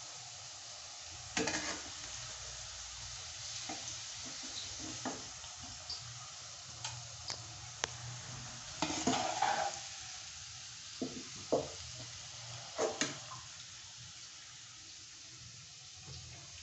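Onion frying in hot oil in a pan, a steady sizzle, with scattered clinks and scrapes of a steel slotted spoon as the fried onion is scooped out and tipped into a bowl.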